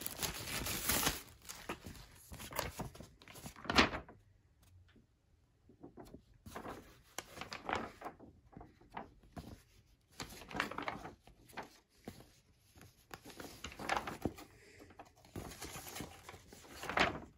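Paper pages of a ceiling fan's owner's manual being turned and handled: short rustles and soft taps, broken by a couple of brief pauses.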